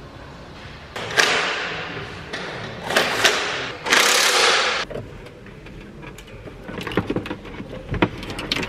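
Compressed air hissing in several short bursts, the longest about a second long and cut off sharply. Light clicks and knocks follow near the end.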